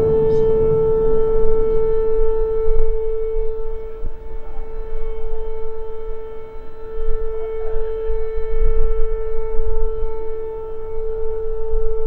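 Air raid siren sounding one steady, held tone, with a low rumble underneath.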